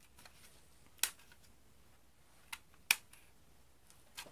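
Sharp plastic clicks as a spring-powered toy ping pong ball shotgun is handled. There are four clicks in all, the two loudest about a second in and about three seconds in.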